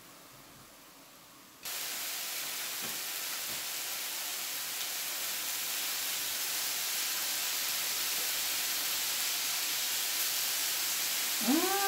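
Beef satay skewers sizzling on a hot electric grill plate as margarine is brushed over them: an even, high-pitched hiss that starts suddenly about two seconds in and swells slightly. Near the end a voice gives a short rising-and-falling hum.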